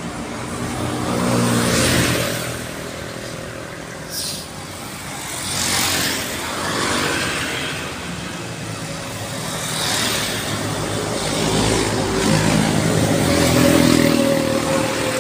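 Road traffic passing close by: several vehicles go past one after another, each swelling and fading. Near the end the loudest pass-by is a white cargo truck at the head of a truck convoy, its engine tone clear over the tyre noise.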